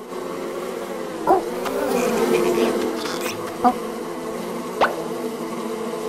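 A steady, slightly wavering insect-like buzz, broken by three short sharp blips about one, three and a half, and five seconds in.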